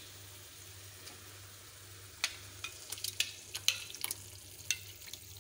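Chicken and tomato masala sizzling gently in a metal pan, then from about two seconds in a quick series of sharp clicks and clinks as a spoon knocks against the pan while yogurt is spooned in.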